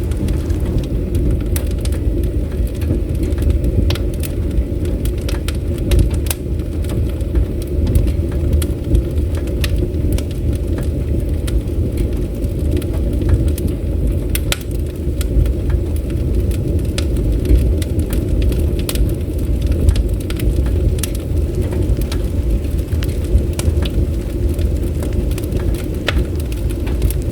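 Bonfire crackling, with frequent sharp pops and snaps scattered irregularly over a steady low rumble.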